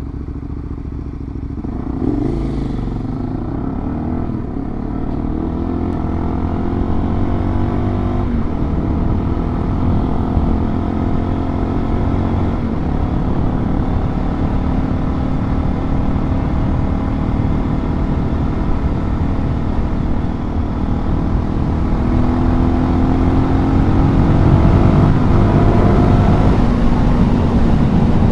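Suzuki DR-Z400 single-cylinder four-stroke engine pulling the bike along. It climbs in pitch and drops back several times in the first few seconds as it works up through the gears, runs steady at cruising speed through the middle, then climbs again near the end.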